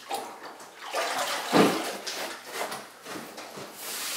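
Wet tile sponge wiped over freshly grouted ceiling tile in several rubbing strokes, the loudest about one and a half seconds in.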